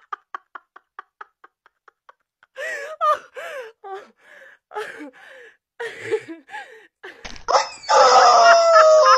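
Light rapid taps about six a second, then a person's voice, then a yellow rubber chicken toy squeezed near the end, letting out a long, loud squawk.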